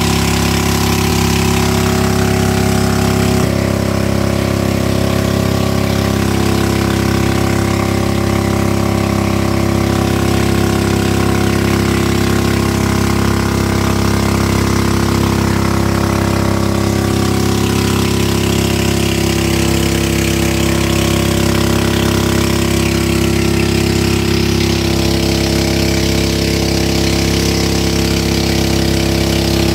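Motorboat engine running steadily at an even speed while towing a raft, its pitch shifting slightly about three seconds in.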